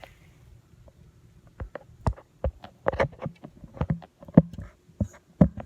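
Handling noise from a phone being moved and set in place: a quiet start, then a string of irregular knocks and bumps against the microphone from about a second and a half in.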